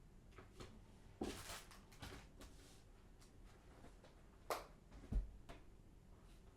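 Small handling noises in a small room: scattered light clicks and a brief rustle about a second in, a sharp knock past the middle, then a dull thump just after five seconds.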